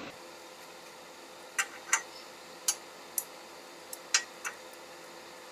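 Sharp metallic clicks, about seven at irregular intervals, from a socket wrench being worked on an underbody bolt of a Nissan Navara pickup.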